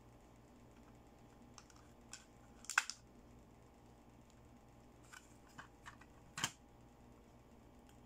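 Light plastic clicks and taps from handling a toy eyeshadow palette and its applicator, scattered and irregular, with the sharpest cluster a little under three seconds in and another sharp click about six and a half seconds in.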